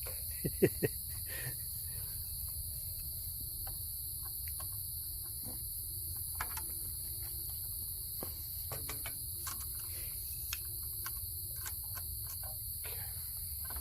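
Steady high-pitched chorus of crickets, with scattered light clicks and knocks over it; the loudest are three quick knocks just under a second in.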